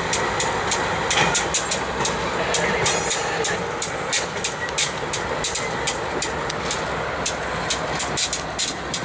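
BNSF and Norfolk Southern diesel locomotives rolling slowly past, engines running and wheels on the rails, with frequent sharp clicks throughout.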